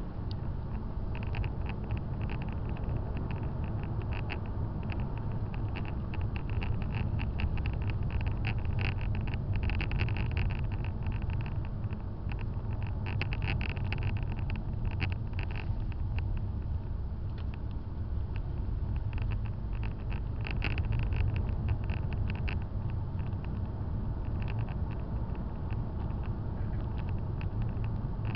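Car interior noise while driving: a steady low rumble of engine and tyres on the road, with frequent small clicks and rattles from inside the cabin, busiest around the middle of the stretch.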